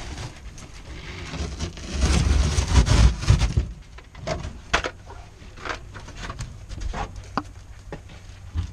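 Old carpet and padding being pulled and torn off a car's rear floor: rustling and scraping, heaviest about two to three seconds in, then scattered light knocks and crinkles as the loose pieces and plastic are handled.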